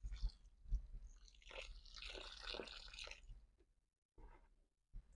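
Water pouring from a plastic watering can onto loose soil, splashing and soaking in to wet the ground around an earth rod. It stops after about three seconds, followed by a few faint small sounds.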